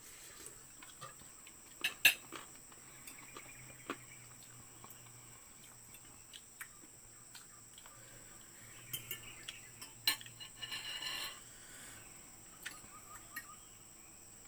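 Spoon and fork clinking and scraping against a plate while eating: scattered single clinks, the loudest about two seconds in, and a short run of clinks and scraping near ten to eleven seconds.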